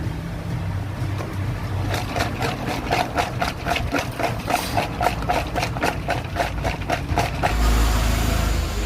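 A fast, even tapping or beat, about four or five strokes a second, over a low background rumble. Near the end it gives way to a louder low rumble with hiss.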